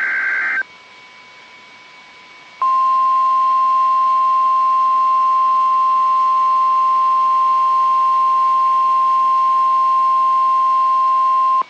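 The tail end of an EAS/SAME digital header burst, a short buzzy warble, then a pause. After that comes the NOAA Weather Radio 1050 Hz alert tone, one loud steady tone held for about nine seconds, which cuts off suddenly just before a tornado watch announcement.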